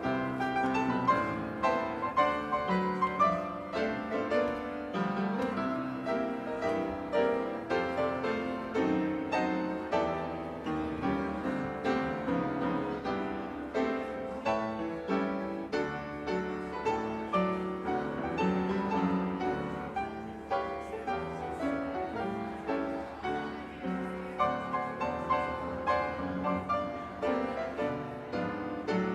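Piano playing the postlude at the close of a church service: a steady run of struck notes and chords, each fading after it is played.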